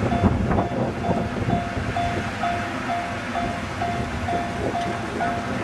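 Japanese level-crossing warning bell ringing, a steady electronic tone repeating about twice a second, over a low rumble from the departing train and wind on the microphone. A few sharp clicks sound in the first couple of seconds.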